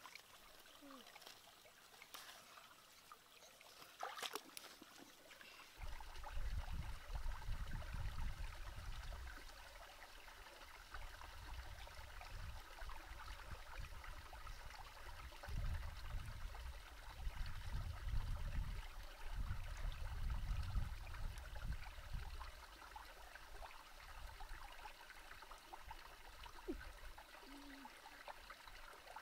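Faint trickling of shallow water with light rustling as water spinach stems are pulled by hand. A low uneven rumble sets in about six seconds in and eases off later.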